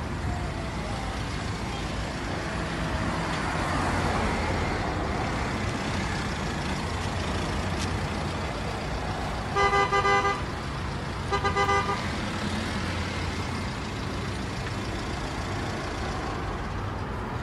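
A car horn sounds twice, two short blasts about a second and a half apart roughly ten seconds in, over a steady low rumbling background of traffic.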